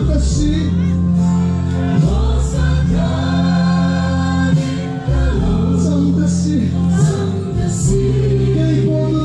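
A congregation sings a gospel worship song together over amplified instrumental accompaniment, with sustained chords and a beat about once a second.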